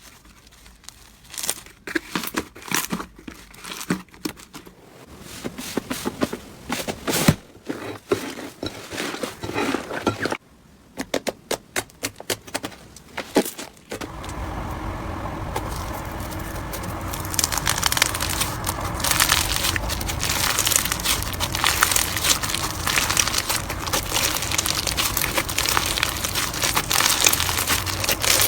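Slime being squeezed and pressed by hand, giving irregular crackling and popping clicks. About fourteen seconds in it changes abruptly to denser, continuous crackling over a low hum.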